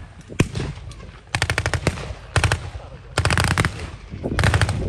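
Machine guns firing blanks in a staged battle: a single shot, then four short bursts of rapid fire.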